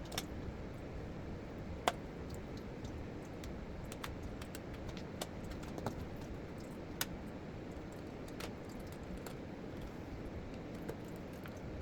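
Irregular light clicks and taps of small plastic parts and screws being handled while a blender base is put back together, with the sharpest click about two seconds in.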